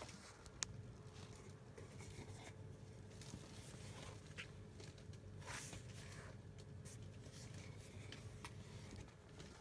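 Faint scraping and rustling of a cardboard box on a blanket as it is handled with a cat lying in it. A single sharp click about half a second in is the loudest sound.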